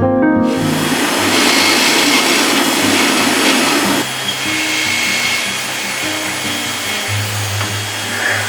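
A workshop power tool's motor running with a steady rushing hiss, coming in about half a second in. It is loudest for the first few seconds, then runs on lower over acoustic guitar background music.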